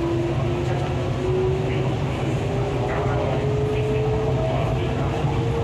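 MTR East Rail line R-Train, a Hyundai Rotem electric multiple unit, running on the line: a steady rumble of wheels on track, with the traction motor whine rising slowly in pitch as the train gathers speed.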